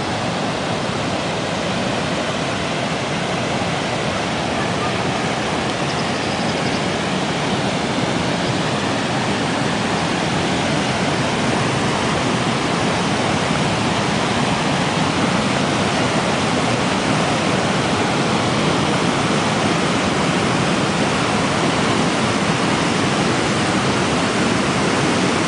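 Snowmelt-fed mountain creek rushing over rocks: a loud, steady rush of white water.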